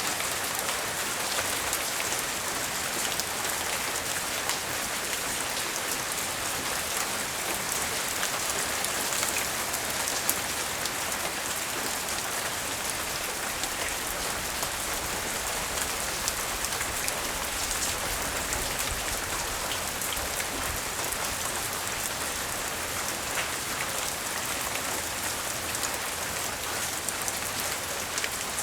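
Light rain falling steadily: an even hiss of rain on surfaces, dotted with many small ticks of individual drops.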